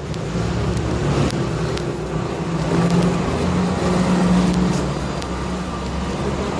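Street traffic: a motor vehicle's engine running with a steady low hum that swells a little around the middle, over general street noise.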